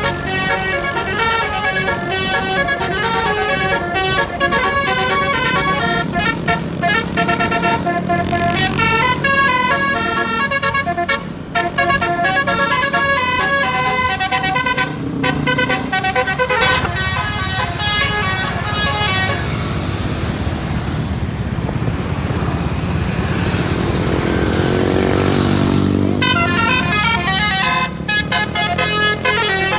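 Indonesian bus basuri horn, a multi-tone musical 'telolet' horn, playing a fast melody of short stepped notes. After about eighteen seconds the melody gives way for several seconds to a rushing noise with a rising and falling tone, then the horn notes start again near the end.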